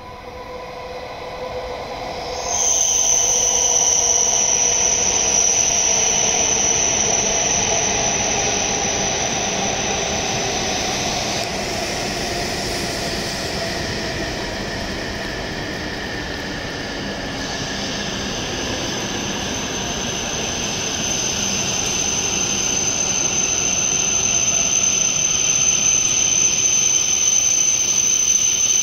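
E7 series Shinkansen train running into the platform and slowing to a stop. A high, steady squeal sets in sharply a couple of seconds in, over a lower motor whine that falls in pitch as the train slows. The sound grows louder again near the end as the cars draw alongside.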